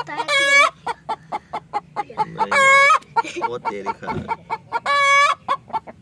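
Hen's egg-laying cackle: rapid clucks at about four to five a second, broken three times by a long, loud squawk. This is the call a hen gives just after laying an egg.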